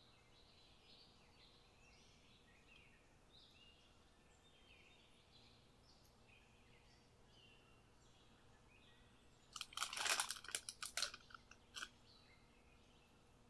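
Plastic piping bag crinkling and rustling for about a second and a half as a silicone spatula pushes thick walnut-meringue cookie paste into it, followed by a few shorter crackles. Faint bird chirps before it.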